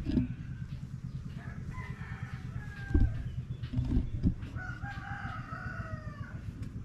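A rooster crowing twice, each crow a long call about a second or more, the second sliding down in pitch at its end. Under the crows runs a steady low rumble, and a few short knocks, the loudest sounds, come about three and four seconds in.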